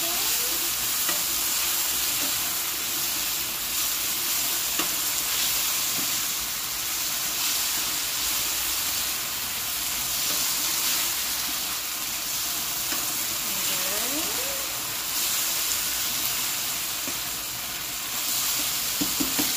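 Diced marinated chicken sizzling steadily in oil in a skillet, stirred and turned with a slotted spatula that taps and scrapes lightly against the pan.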